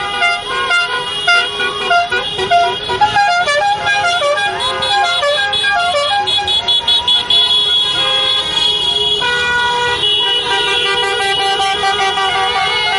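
Many car horns honking at once in a slow celebratory car procession, overlapping at different pitches: rapid short toots through the first half, then longer held blasts.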